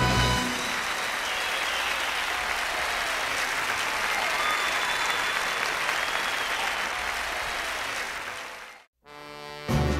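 Concert audience applauding and cheering after a song ends, with a few voices rising above the clapping; the applause fades out about nine seconds in, just before the band starts the next song.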